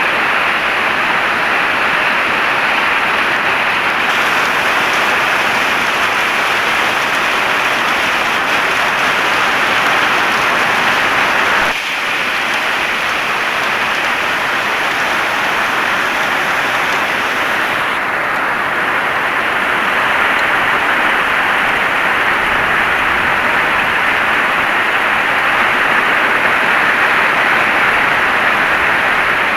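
Heavy rain falling steadily, a dense, even hiss with a brief dip about twelve seconds in.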